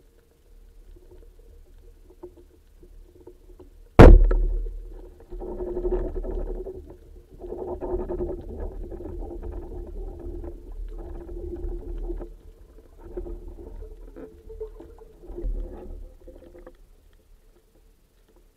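A wooden band-powered speargun firing underwater: one sharp, loud crack about four seconds in. Then about twelve seconds of irregular, muffled underwater rattling and knocking as the spear shaft and line are fought with the speared fish, stopping near the end.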